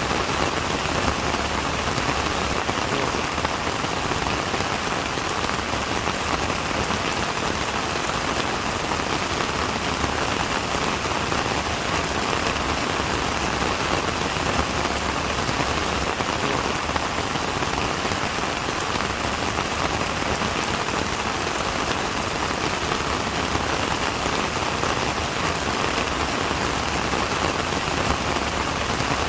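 Steady rain falling on a surface, a dense even patter of raindrops.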